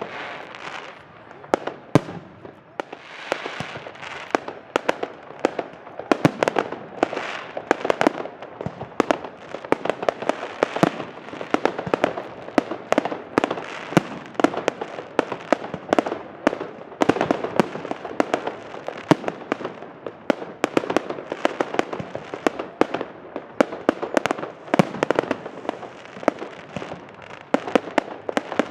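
Aerial fireworks display: shells bursting overhead one after another, a dense, unbroken run of sharp bangs and crackles.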